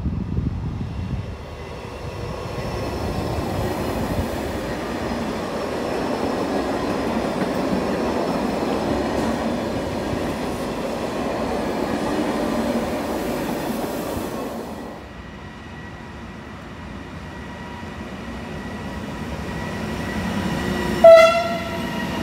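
An Italo high-speed train passing through with a steady rumble of wheels on rails that fades after about fifteen seconds. Then a freight train of tank wagons draws close, and its locomotive gives one short, loud horn blast near the end, the loudest sound.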